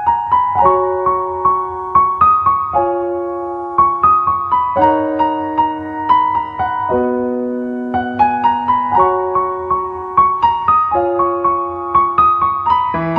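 Background piano music: a melody of single notes struck one after another, each ringing and fading, in a phrase that repeats about every four seconds and grows fuller near the end.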